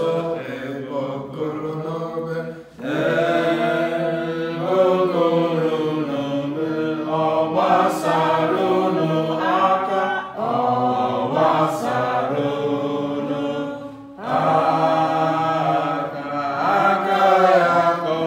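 Voices singing a slow prayer chant in long held phrases, breaking briefly about three seconds in and again about three quarters of the way through.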